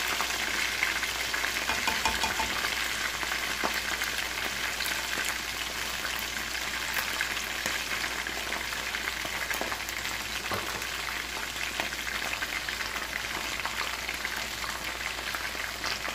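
Chicken wings deep-frying in hot oil in a metal wok: a steady sizzle as the browned pieces finish cooking, with a few faint clicks of a slotted spatula moving them in the pan.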